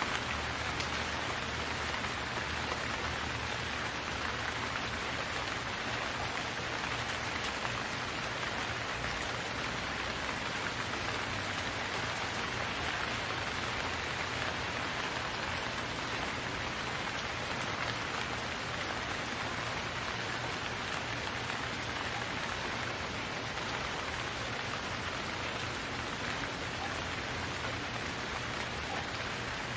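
Steady rainfall, an even continuous hiss of drops with no change in strength.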